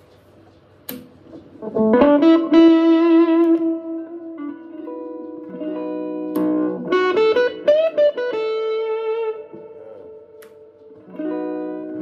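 Les Paul-style electric guitar played through an amp, its bridge pickup's tone knob turned down for a warmer sound. It plays a lick of single notes with bends and vibrato starting about two seconds in, then a few chords and more bent notes, ending on a chord.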